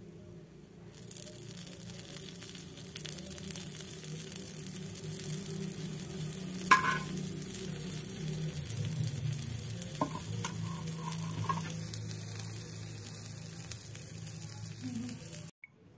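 Burger bun and meatball-and-egg filling sizzling on a hot oiled flat griddle, a steady frying hiss, with the metal slotted spatula clinking sharply against the griddle a few times, loudest about seven seconds in. The sizzle cuts off abruptly near the end.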